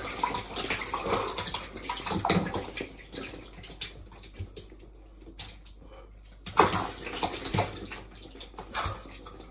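Thick slime gunge poured over a person's head, splashing and dripping in a tiled shower. It thins to scattered drips about three seconds in, then a fresh pour splashes down loudly about two-thirds of the way through.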